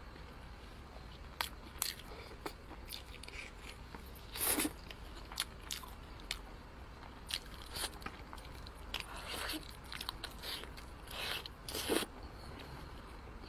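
Close-miked eating of braised pork in sauce: scattered short clicks and brief wet bites and chews as a piece is handled and bitten. The loudest bites come about four and a half seconds in and again near the end.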